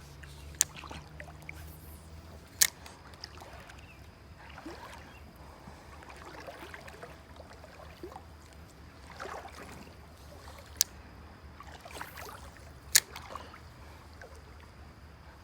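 Footsteps of someone walking along a shallow rocky creek: soft scuffs and swishes every few seconds, over a faint trickle of running water. Four sharp clicks stand out, two near the start and two in the second half.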